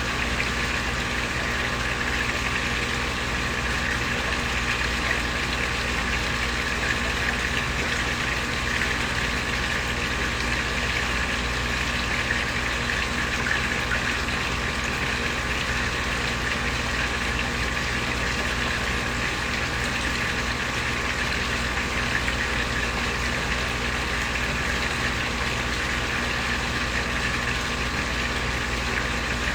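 Small koi pond waterfall: water pouring steadily into the pond in an even, unbroken splash, with a steady low hum underneath.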